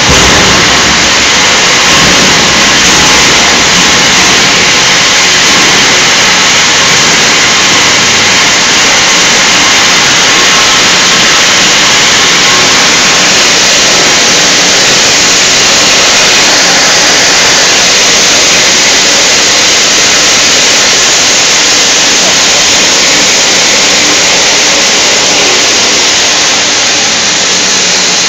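Industrial paint can crusher/grinder running: loud, steady machine noise that holds level throughout.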